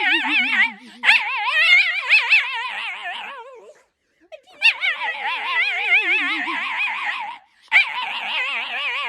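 A dog howling in three long wavering calls with short breaks between them; the first two slide down in pitch as they trail off.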